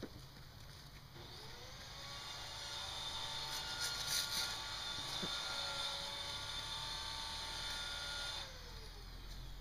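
A motor whirring with several steady tones, spinning up about a second in and winding down near the end, loudest around the middle.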